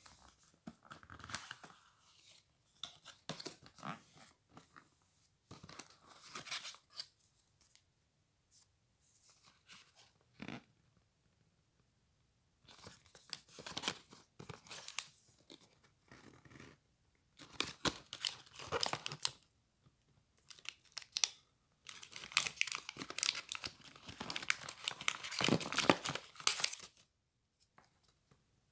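Cardboard packaging and paper being handled: rustling, scraping and crinkling in separate bursts of a second or two with short pauses, the longest and loudest stretch coming near the end.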